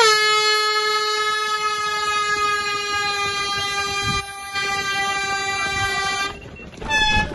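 Race-start hooter sounding to send the runners off: one long, loud blast of about six seconds, then a short second blast near the end.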